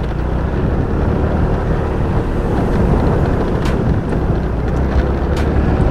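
Motorcycle running steadily while riding, with wind noise on the microphone and a low rumble. Two short knocks, around the middle and near the end.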